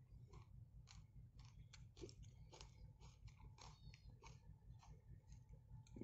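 Near silence with faint, irregular crackling and clicking, like light handling noise.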